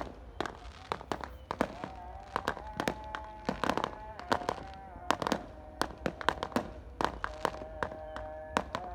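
Firecrackers and fireworks going off in a rapid, irregular string of sharp bangs and cracks, several a second.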